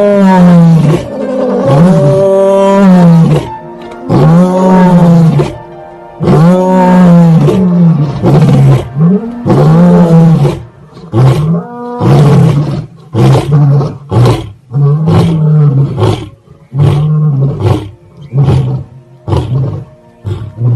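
An animal calling over and over in loud, arching moans. The calls start long and grow shorter and quicker toward the end.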